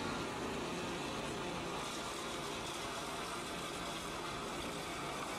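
An engine running steadily, heard as a continuous even rush with no separate strokes or knocks.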